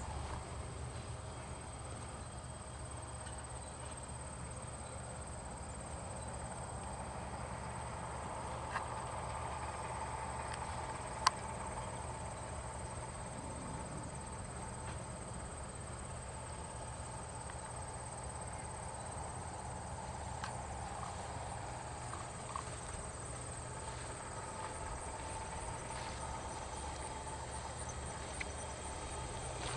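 Faint, steady outdoor background with a low hum and a thin high tone, broken by one sharp click about eleven seconds in.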